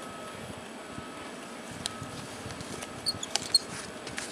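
Metal pulley and hook on a rope line clinking as a bucket of soil is hung from it: a light click about two seconds in, then a cluster of clicks with short high squeaks in the last second.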